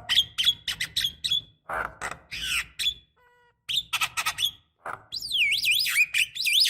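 Javan myna calling: a string of short, harsh squawks and clicks, then from about five seconds in a run of whistles that swoop up and down.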